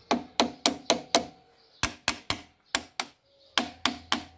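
A screwdriver handle tapping sharply on the ATV's handlebar brake master cylinder reservoir cap, about a dozen knocks in three short bursts at roughly four a second, to free a cap and screws stuck fast from long disuse.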